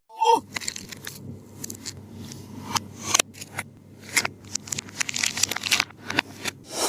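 Taba squishy toy being squeezed by hand, giving irregular sticky crackles and clicks. There is a short falling squeak right at the start.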